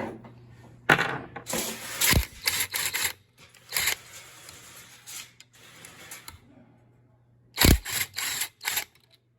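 Wrench and metal parts clicking and clanking in short runs, about three strikes a second, as the 8 mm bolts holding a small engine's sheet-metal cooling tins are undone.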